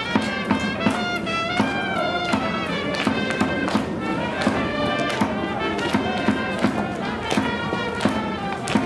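Music: a melody of held notes over a steady drumbeat, about two and a half beats a second.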